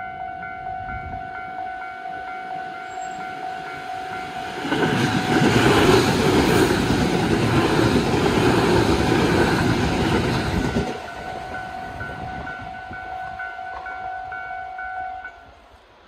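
Level-crossing alarm bell ringing steadily while a Tobu Noda Line electric train passes over the crossing, its wheels and running gear making a loud rumble from about five seconds in until about eleven seconds in. The bell keeps ringing after the train has gone and stops near the end.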